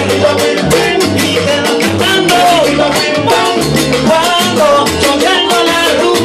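Live salsa band playing: a man singing over a stepping bass line and busy Latin percussion, with a gourd güiro scraped steadily in rhythm.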